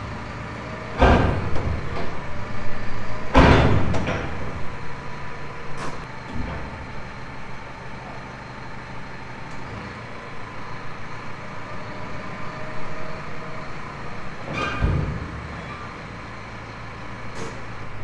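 Tractor engine running steadily while its tipping trailer body is lowered after unloading a load of crimped maize grain, with loud metal clanks from the trailer about a second in, around three and a half seconds and near fifteen seconds.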